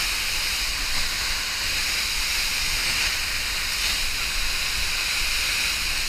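Lehner Waterfall, running high with snowmelt, heard close up from inside its spray: a steady, loud rushing hiss of falling water.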